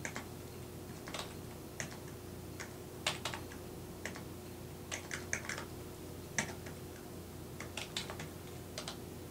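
Calculator keys pressed one at a time, a run of light, irregular clicks as numbers are keyed in to add up a column.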